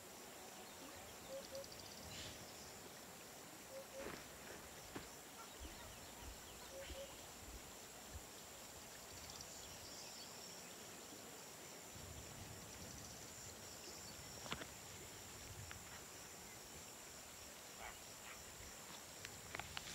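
Faint woodland ambience: a steady high insect drone with a few short chirps and scattered light rustles and clicks.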